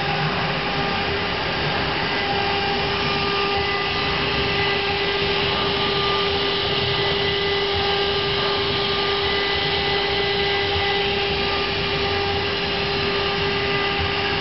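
Two electric spindles of a two-head CNC router running as they route a wooden board. There is a steady high whine over a continuous cutting and rushing noise.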